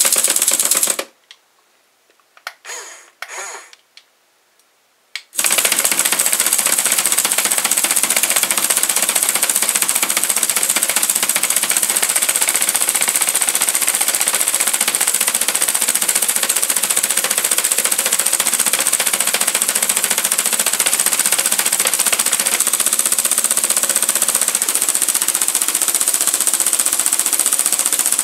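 Breaker/hammer attachment of a 1/16-scale Double E RC excavator hammering its metal striker rapidly into a chunk of clay. There is a short burst at the start, then from about five seconds in a steady, fast rattle of blows.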